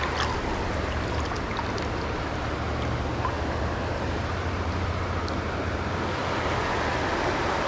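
Steady rush of stream water, with wind rumbling on the microphone.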